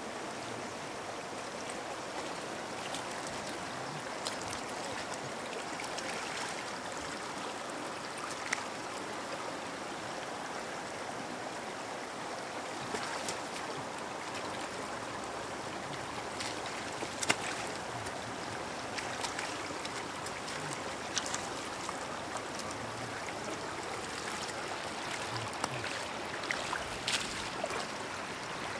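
Shallow floodwater running steadily over ground, with occasional short splashes; the sharpest comes about seventeen seconds in, and several more come near the end.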